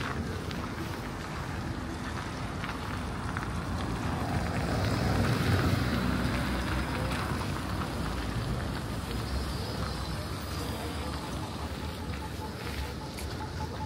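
Outdoor ambient noise: a steady rush that swells louder about five seconds in, then settles.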